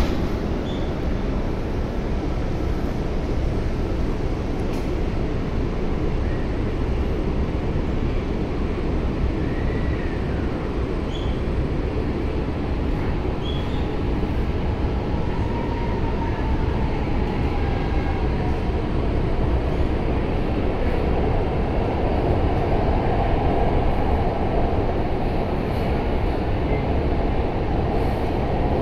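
Steady rumble and hum inside an electric metro train car as the train stands at a platform and then pulls away, with the noise growing a little louder in the later part. A faint gliding tone runs through the middle.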